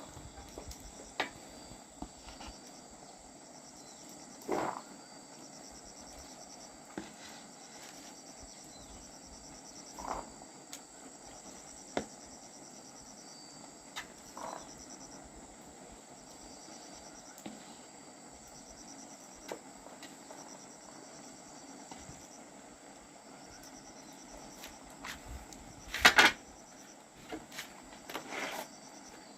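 Insects chirping in short, regularly repeating high trains over a steady low background, with scattered knocks and clatters of things being handled, the loudest cluster near the end.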